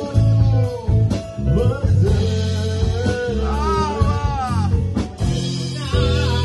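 A man singing into a microphone over a band, with guitar and a steady bass line accompanying him.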